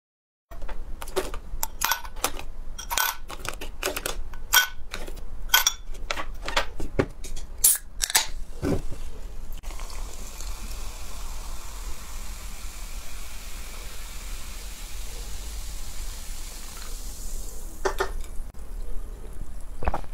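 A string of sharp clicks and knocks, then cola poured from a can into a glass mug over ice, fizzing with a steady hiss for about seven seconds. A few more clicks come near the end.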